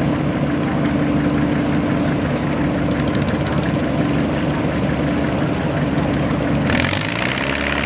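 Tractor engine running steadily under light load while pulling a weighted sled. About seven seconds in, a loud hiss joins the engine sound.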